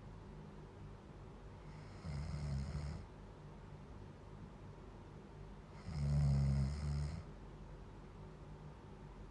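A person snoring: two deep snores about four seconds apart, each lasting about a second, the second one louder.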